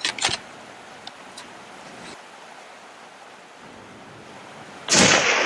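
Steady outdoor hiss with a few faint clicks at the start, then, near the end, a single scoped bolt-action rifle shot followed by a long rolling echo.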